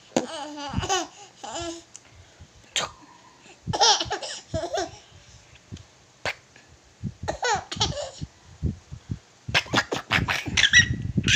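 Baby laughing in four bouts of high, breathy giggles with short pauses between them, with a few knocks of handling in the last burst near the end.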